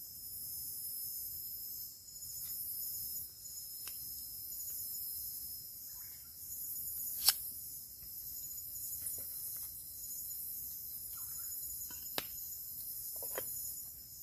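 A chorus of insects chirring steadily at a high pitch, with a few sharp clicks, the loudest about seven seconds in.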